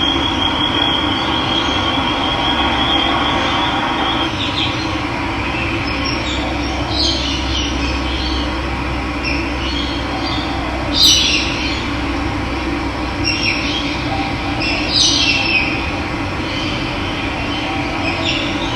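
Steady rush of running water, with birds calling in short chirps every few seconds; the loudest call comes about eleven seconds in. A thin high steady tone sounds through the first few seconds.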